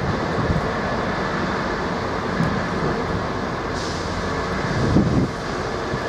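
Freightliner Class 66 diesel locomotive's two-stroke V12 engine running steadily as it hauls a container train slowly past, with a brief hiss about four seconds in.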